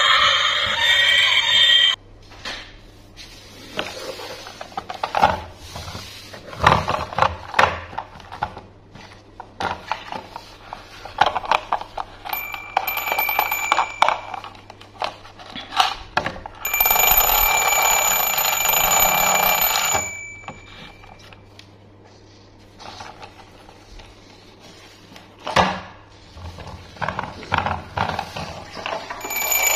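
Electronic ringing jingle from a battery-operated toy train. It stops about two seconds in, plays again for about three seconds in the middle, and starts again near the end. Between these come plastic clicks and knocks as the toy is handled.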